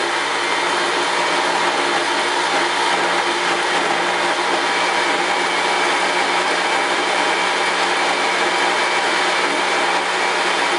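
Countertop blender motor running steadily under the load of a thick frozen-banana mixture, a continuous even whir with no break.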